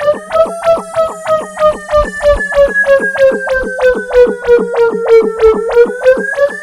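Whelen WS-1000 tornado siren wail turned into electronic music: the siren tone, with its overtones, rises briefly, falls slowly and rises again near the end. It is chopped by an even beat of clicks, about four a second, with a few deep bass thumps.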